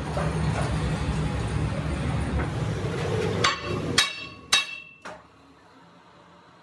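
A steady low machine rumble that stops about four seconds in, overlapped by about four hammer blows on a steel truck wheel rim clamped in a lathe's four-jaw chuck, about half a second apart, each ringing metallically. These are the taps that seat and true the rim in the chuck before turning.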